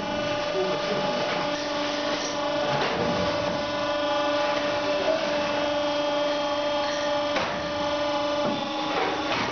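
Hydraulic unit of a machine for opening sealed metal ammunition boxes, running with a steady hum. A few sharp knocks come as the box is loaded and pushed toward the cutting discs.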